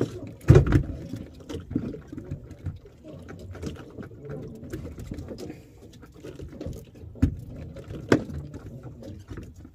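A handline being hauled in hand over hand on a small fishing boat: irregular knocks and thumps against the boat, with light watery pattering. The loudest knocks come about half a second in, and twice more near the end.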